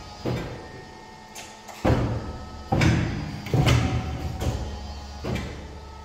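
Fuji 1320-4P paper and board cutting machine working through a programmed cutting sequence: about six heavy clunks and thuds from its knife, clamp and back-gauge movements over a steady low machine hum.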